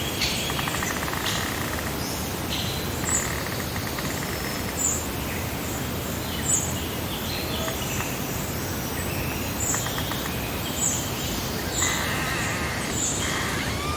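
Birds calling in a summer meadow ambience: short high chirps repeating irregularly every half second to a second, with buzzy pulsed calls near the start and again near the end, over a steady background hiss.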